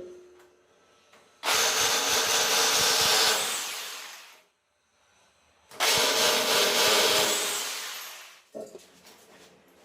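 Electric drill running in two bursts of about three seconds each, each one trailing off as it winds down.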